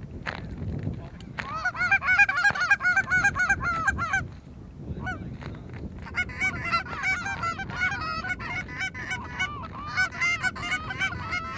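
Goose honking and clucking: rapid, overlapping honks in a burst from about a second and a half in to about four seconds, then again steadily from about six seconds on.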